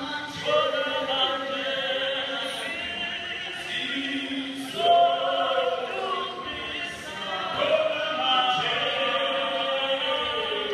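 A choir singing together, with a wavering vibrato on the high voices.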